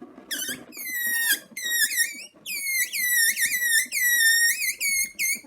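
Balloon squeaking in a quick run of short, high squeals that dip and rise in pitch, imitating mice squeaking.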